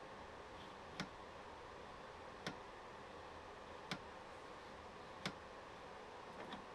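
Sharp single metallic clicks, about one every second and a half, over a faint steady background hiss: the steel cutter holder of a grinding rest being slid back and forth and knocking on the rest's table and fence while a dovetail cutter is passed across the grinding wheel.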